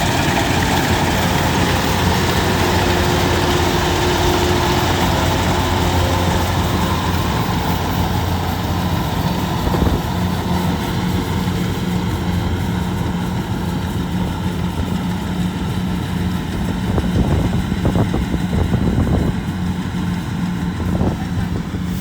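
Engine of a rice harvesting machine running steadily, with a few short knocks near the end.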